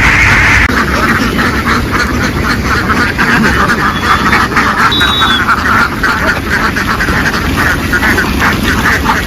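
A large flock of ducks quacking together, many short calls overlapping in a dense, continuous chatter over a steady low rumble.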